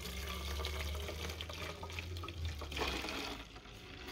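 Milky sulfur-and-water solution being poured from a plastic jug into a plastic spray bottle: a steady trickling and splashing of liquid filling the bottle.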